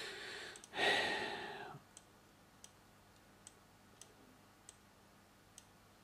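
A breathy exhale about a second in, then faint, sparse computer mouse clicks spaced roughly half a second to a second apart.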